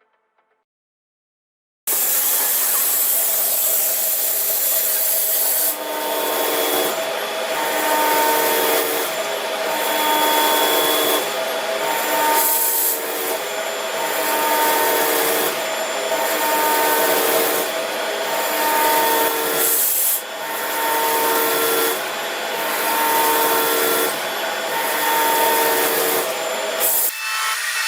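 Gear-cutting machine tool grinding and scraping at metal, with a few steady ringing tones that pulse about once a second; it starts abruptly about two seconds in.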